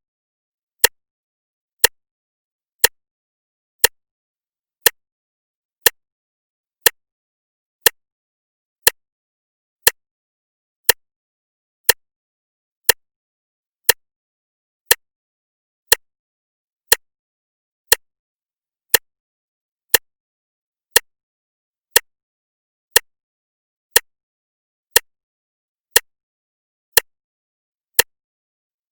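Clock ticking steadily once a second: short, sharp ticks of even loudness with silence between them.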